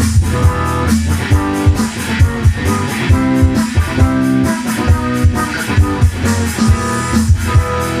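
Rock band music without vocals: guitars and bass over a steady drum beat.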